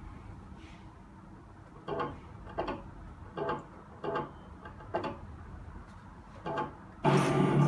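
Full-metal RC Leopard 2A6 model tank's small electric motors making a run of short mechanical whirs, each a fraction of a second long and under a second apart. About seven seconds in, a louder, steady running sound with a low hum starts.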